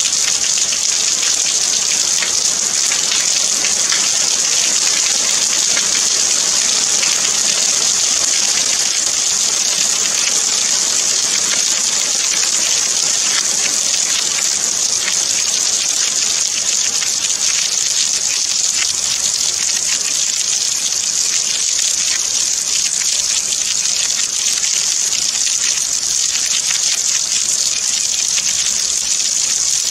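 Steady rain: an even high hiss with a fine, dense patter of drops.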